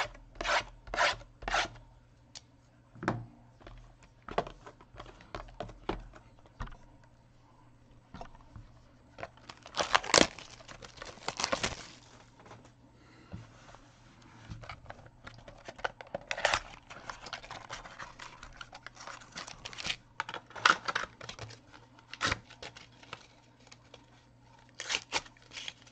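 Sports card pack wrappers being torn open and crinkled while cards are handled: a series of short rips and rustles, loudest about ten seconds in.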